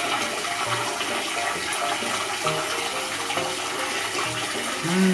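Tap water running steadily into a bathtub, an even rushing hiss.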